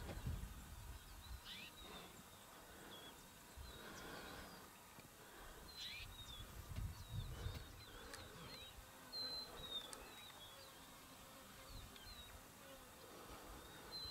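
Faint wild outdoor ambience: birds chirping in short scattered calls, with a few low rumbles near the start and about seven seconds in.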